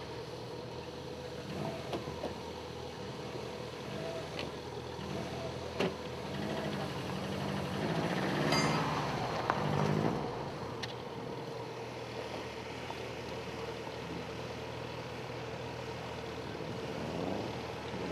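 Rally car engines idling steadily, with a louder passage of changing pitch about eight to ten seconds in.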